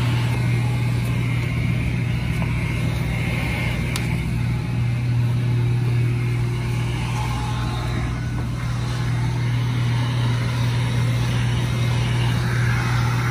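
Handheld heat gun running steadily: an even low hum with the hiss of its air blast.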